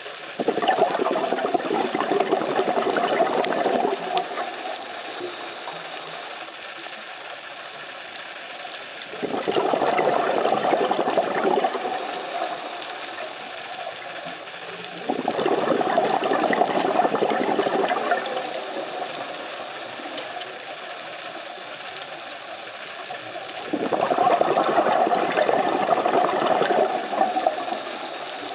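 Scuba diver's exhaled breath bubbling out of the regulator, heard underwater: four long bursts of crackling bubbles about every seven seconds, with a quieter steady hiss between them.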